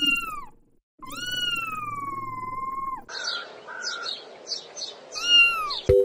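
Kitten meows processed to sound as if meowed into a spinning electric fan. A short falling meow, then a long meow that rises and slowly falls over a whirring hiss, then a run of short choppy, fluttering meow fragments, and a last falling meow near the end.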